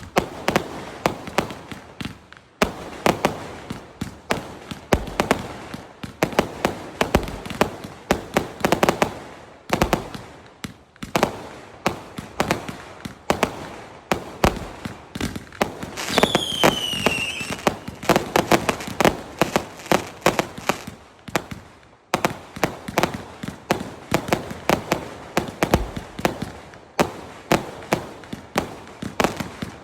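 A 399-shot, 0.8-inch fireworks cake repeater firing shot after shot in rapid succession, several loud reports a second. Partway through, a falling whistle sounds for about a second and a half.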